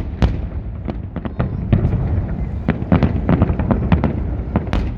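Large fireworks display: aerial shells bursting in rapid, overlapping cracks and booms, several a second, over a continuous low rumble.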